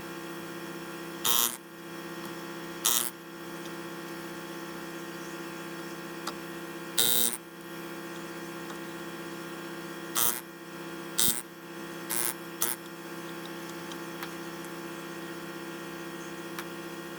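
Steady humming of a small electric motor, with short sharp noises about a second and a half in, at three, seven and ten seconds, and three more in quick succession soon after.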